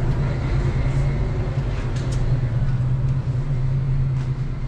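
Steady low mechanical hum of running machinery.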